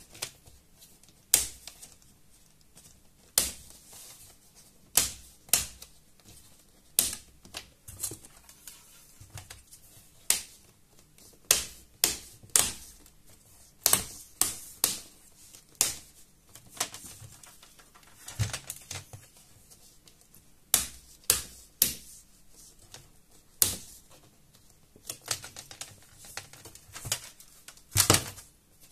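Plastic screen bezel of an Acer Aspire 3 A315 laptop being pried off by hand, its retaining clips snapping loose in a string of sharp clicks, irregularly spaced about a second apart, with a loud double click near the end as the bezel comes free.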